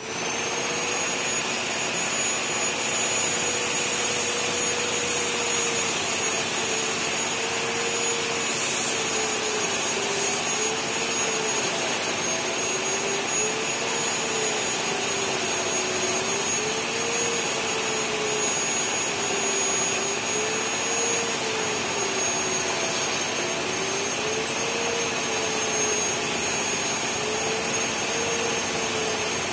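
Compressed-air spray gun hissing steadily as it sprays wood finish, over the drone of an air compressor whose hum slowly rises and falls in pitch every few seconds.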